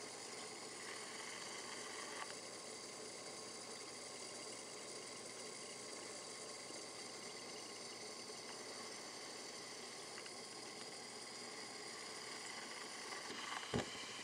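Aquarium pump and bubbling water: a faint, steady hum and hiss, with a single sharp knock near the end.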